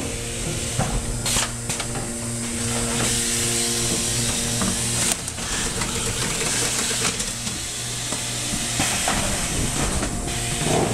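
An automatic case erector running: a steady hiss of compressed air and a motor hum, with a few sharp clacks as it opens and folds corrugated boxes.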